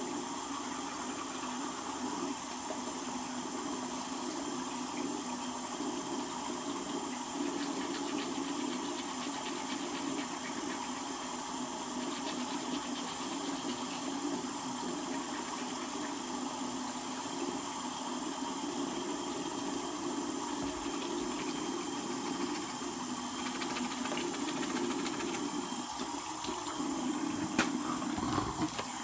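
Bathroom sink faucet running steadily with an even hiss, with a few brief sudden sounds near the end.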